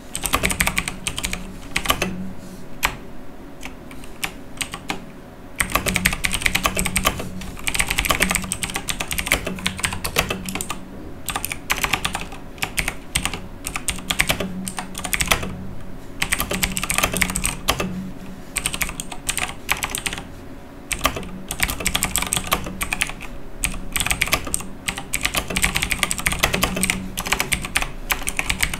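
Typing on a Razer BlackWidow Chroma mechanical keyboard: rapid runs of key clicks and clacks, broken by short pauses every few seconds.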